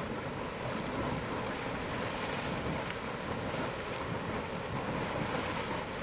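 Beehive Geyser erupting: the steady rushing hiss of its water column and spray, mixed with wind on the microphone.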